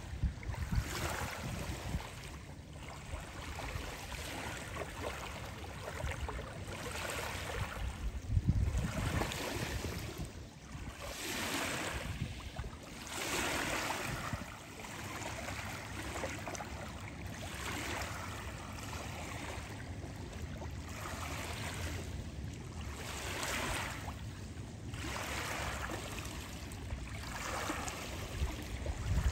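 Small waves lapping on a sand-and-pebble lake shore, washing in and out every second or two, with wind rumbling on the microphone now and then.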